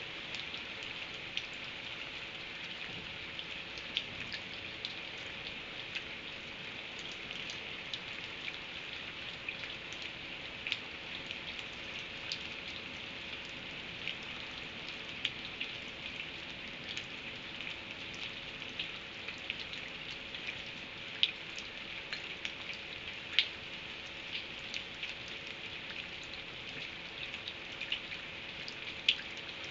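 Steady rain falling, a continuous hiss dotted with sharp drip and tap sounds of drops hitting a surface, a couple of them louder about two-thirds of the way through.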